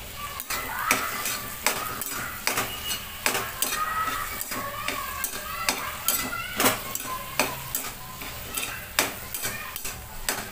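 Metal spatula stirring and scraping mashed eggplant bharta around a metal kadai, clinking against the pan about once or twice a second with short scraping squeaks, over a low sizzle of the food frying in oil.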